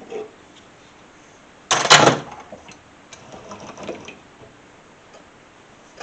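A sharp metal knock about two seconds in, followed by a second or two of lighter clatter as a bolt held in a mini lathe's chuck is knocked and shifted to true it up.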